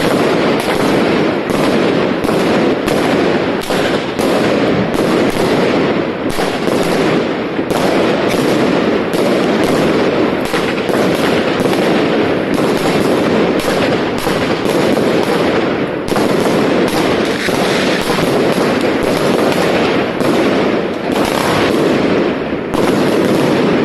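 Fireworks going off without pause: a dense, continuous crackle of many rapid bangs and pops, several shots a second, typical of a consumer firework battery firing.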